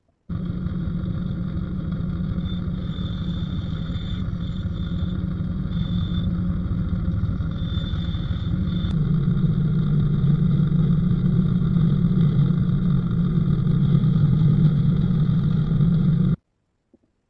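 Benchtop drill press motor running steadily while the bit drills into wood, with a thin high whine over a deep hum; it grows louder about nine seconds in.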